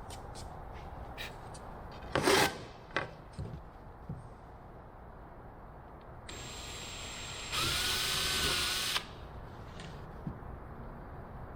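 Small electric drill running for about a second and a half near the middle, with a steady motor whine, after scattered clicks and a knock from handling parts.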